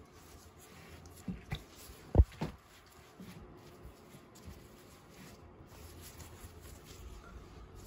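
Handling noise as the jerseys are moved under the phone: soft fabric rustling, with a few light bumps between about one and two and a half seconds in, the sharpest just after two seconds.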